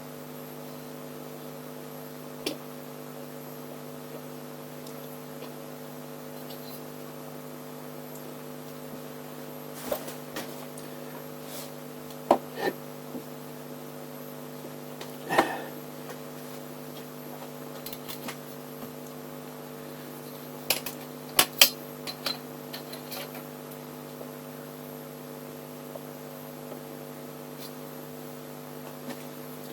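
Steady electrical hum, with scattered light clicks and metallic taps from parts and tools being handled on a bench. The loudest taps come around halfway and about two-thirds through.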